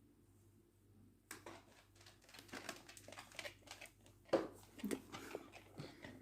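Irregular crinkling and rustling of a packet of dried valerian root being handled, starting about a second in, with a louder knock about four seconds in.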